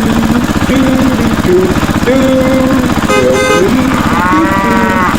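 An engine running with a rapid, even chugging, with stepped tones over it, a brief horn-like blast about three seconds in and an arching, wavering call near the end.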